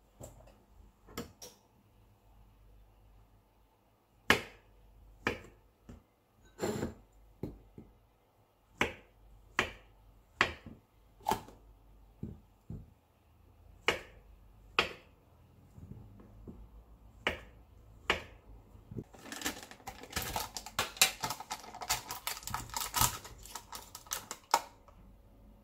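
Kitchen knife chopping a banana against a plastic cutting board: single sharp knocks about a second apart. Near the end come a few seconds of dense crackling.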